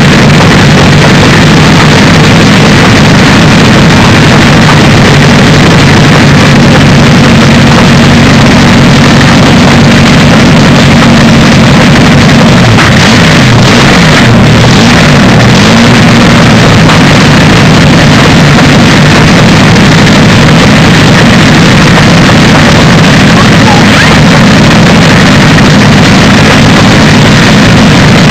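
The Napier-Bentley's 24-litre W12 Napier Lion aero engine running, very loud and steady through its short exhaust stacks. Its engine speed dips and rises briefly about halfway through.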